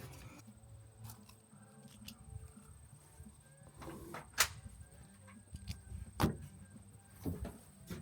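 A few sharp knocks or clicks, the loudest two about four and six seconds in, over a faint low steady hum.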